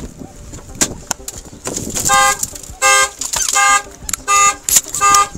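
Car alarm sounding the car's horn in repeated blasts, roughly every three-quarters of a second, starting about two seconds in, set off when the front passenger window was broken in. A few sharp knocks come before it.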